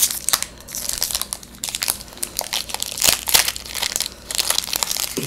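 Foil wrapper of a Pokémon TCG booster pack crinkling and tearing as it is worked open by hand, a dense, irregular run of sharp crackles. The pack is stiff and hard to tear open.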